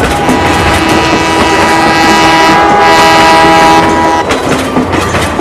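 Train horn sounding one long chord over wheels clattering on rail joints. The horn stops about four seconds in while the clatter goes on.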